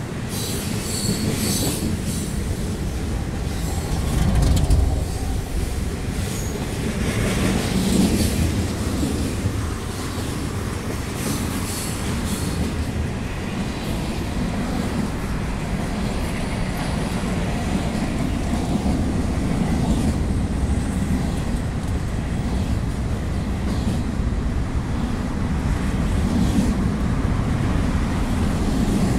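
Freight cars of a manifest train rolling past below: a steady rumble of steel wheels on rail with rail-joint clatter. There are brief high wheel squeals now and then in the first dozen seconds.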